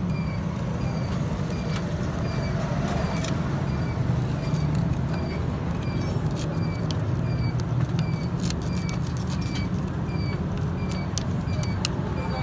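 An engine running steadily at an even pitch, with a short high chirp repeating about every two thirds of a second and a few scattered clicks.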